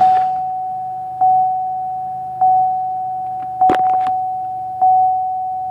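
Car dashboard warning chime dinging at an even pace, one fading ding about every 1.2 seconds, over a 2001 Chevy Malibu's engine idling just after a start at just under 900 RPM. A single knock about two thirds of the way through.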